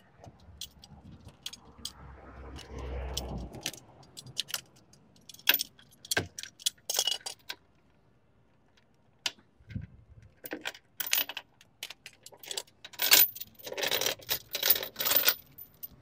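Steel chain links clinking and rattling as the chain is worked through a car wheel's spokes, with a padlock clanking against it; a low rumble about two to three seconds in, and the busiest run of rattling near the end.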